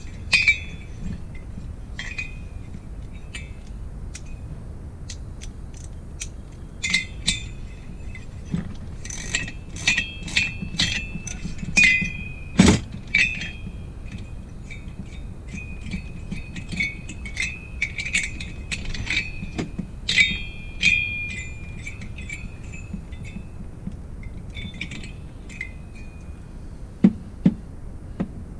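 Light metal clinks and taps of hand tools and engine parts while the cylinder head of a two-stroke bicycle engine is taken off. They come irregularly, busiest in the middle, with one sharper knock about halfway through.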